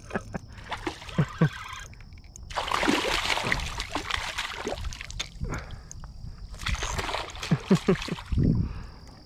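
A hooked redfish thrashing and splashing at the water's surface in two long bouts, with a few sharp knocks before the first.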